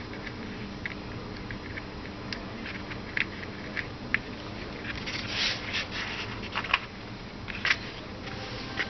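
Small clicks and light scraping of plastic and metal parts as carbon brushes and their holders are fitted onto an electric jigsaw's motor, over a low steady hum.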